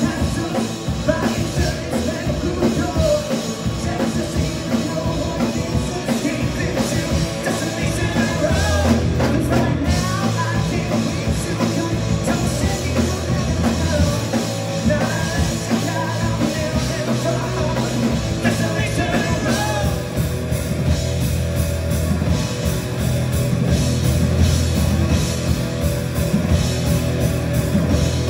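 Rock band playing a song, with singing over the instruments.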